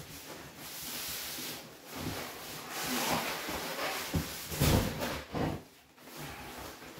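Cardboard rubbing and scraping as an inner box is slid up and lifted out of a large cardboard shipping box, with the loudest scrape about four and a half seconds in.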